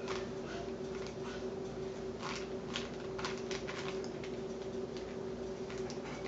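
Rubik's Cube layers being turned by hand: a series of irregular short plastic clicks and clacks, a few a second in places, over a steady background hum.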